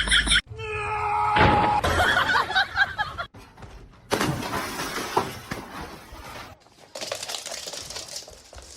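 Crashing and clattering, as of objects falling and breaking, in several separate stretches broken by abrupt cuts.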